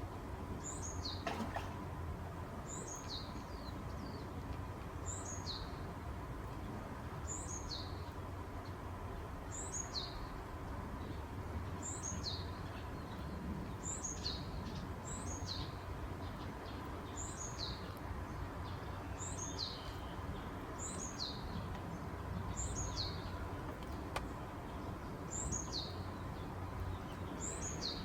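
A bird repeating a short, high call that falls steeply in pitch, about once every two seconds, over a steady low background rumble.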